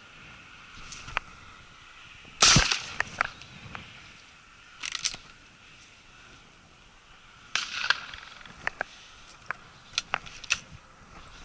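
A single shotgun shot about two and a half seconds in, the loudest sound here, followed by a few brief rustles and scattered sharp clicks.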